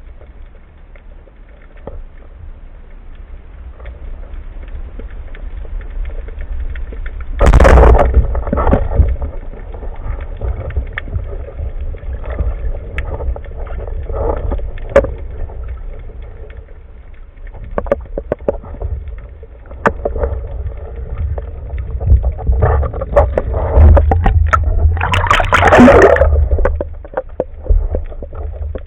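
Underwater ambience picked up by a camera in a waterproof housing: a steady low rumble of moving water with many small clicks. There are two louder rushing, gurgling bursts, a short one about a third of the way in and a longer one near the end.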